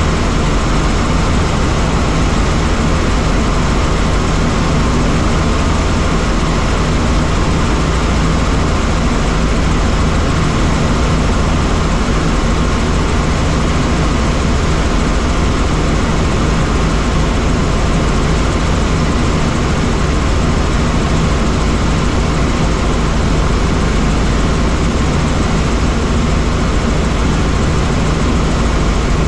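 Helicopter in steady flight: an even, loud drone of engine and rotor, with a steady low hum under a broad rushing noise that does not change.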